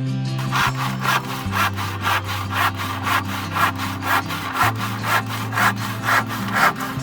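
Hand saw cutting through wood in a steady back-and-forth rhythm, about two strokes a second, over quiet background music.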